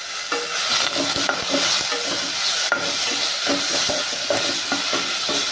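Ground onion, ginger and garlic paste sizzling in hot oil in a metal pot, stirred with a perforated steel spatula that scrapes the pan bottom in quick repeated strokes over a steady frying hiss.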